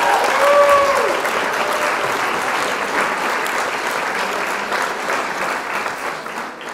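Crowd applauding and cheering, with a few voices whooping in about the first second. The applause fades out near the end.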